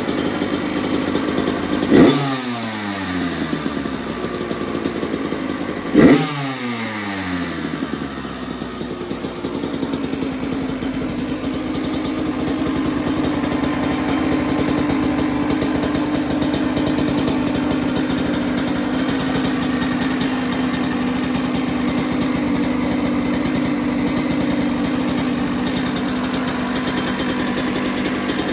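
2021 Kawasaki KX85's two-stroke single-cylinder engine, on its stock exhaust, running cold on choke. It is blipped twice, about four seconds apart, each rev falling back in pitch, then settles to a steady idle.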